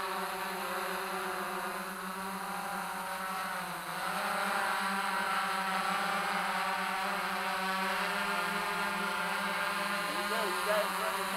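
Large multirotor drone hovering, its rotors making a steady, many-toned buzzing hum that grows louder about four seconds in as it comes closer.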